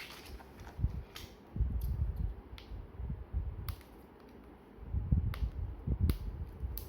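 Handling noise from unpacking a speaker out of its box: irregular low thumps and bumps with a few sharp clicks, busiest near the end.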